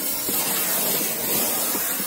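Brazing torch flame hissing steadily as it heats a copper refrigerant line joint.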